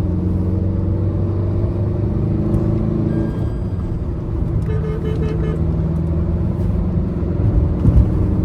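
Tata Nexon's 1.5-litre diesel engine pulling in Sport mode while the car drives off, its pitch shifting about three seconds in. A short run of beeps comes about five seconds in.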